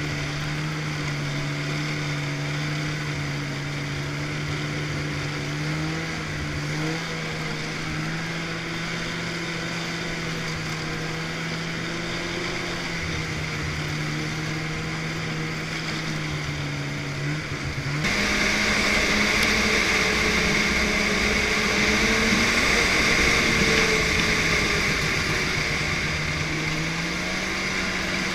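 Snowmobile engine running at a steady cruising speed on a snow trail, its pitch shifting a little with the throttle. About two-thirds of the way through the sound abruptly gets louder and hissier, with the engine a bit higher, and near the end the engine revs up.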